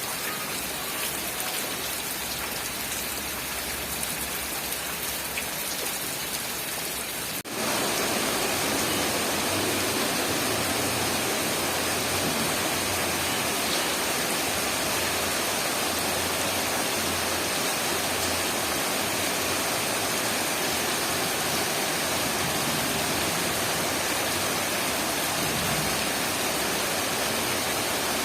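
Steady hiss of heavy rain. About seven seconds in it cuts abruptly to a louder, denser, even rush that continues unchanged.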